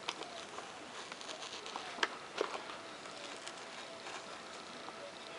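X-Acto knife blade drawn through paper plans and the foam beneath: a faint scratchy crackle, with a few small sharp clicks about two seconds in.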